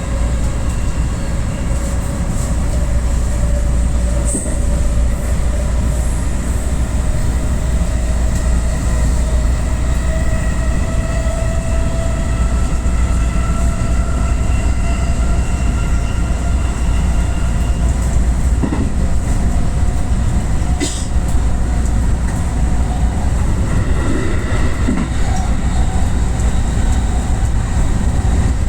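Electric train running, heard from inside the front car: a steady low rumble of wheels on rails, with the motors' whine slowly rising in pitch through the first half as the train gathers speed, then holding steady. A sharp knock comes a little after twenty seconds in.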